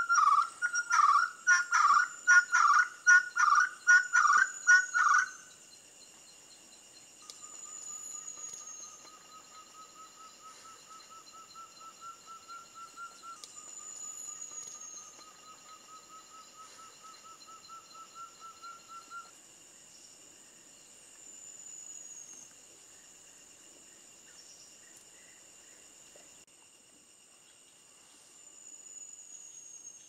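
Ferruginous partridge calling: a loud series of rhythmic notes, about two a second, that breaks off about five seconds in. A fainter, steady trill follows for about twelve seconds.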